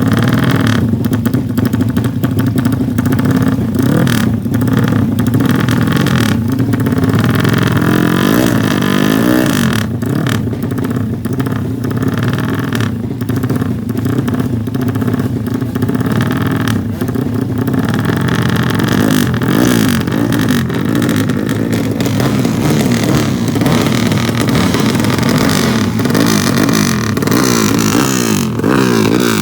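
Motorcycle engines running loud and continuously, revving up and down a few times, with a rising and falling rev around a third of the way through.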